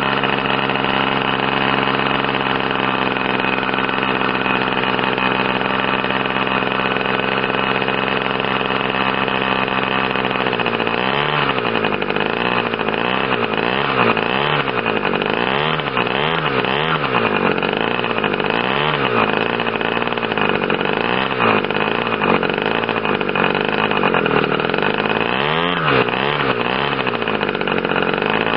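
Irvine 120 model airplane two-stroke glow engine running at high speed, driving its propeller. It runs steady at first; from about ten seconds in, its pitch swings down and back up again and again, roughly once a second.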